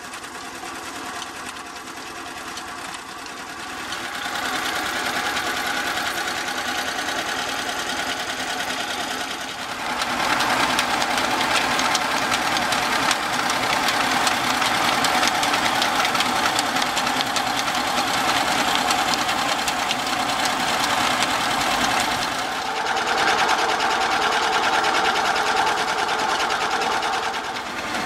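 A flat-belt-driven antique centrifugal water pump running steadily, with the belt, pulleys and bearings making a continuous rhythmic mechanical clatter. It grows louder about ten seconds in.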